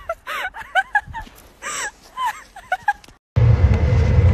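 An animal whimpering: a run of short, high, wavering whines. About three seconds in they cut off abruptly, and a steady low rumble starts and is louder than the whines.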